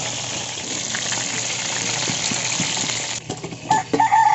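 Fish frying in hot oil, a steady sizzle that stops about three seconds in. Near the end a rooster starts a loud, held crow.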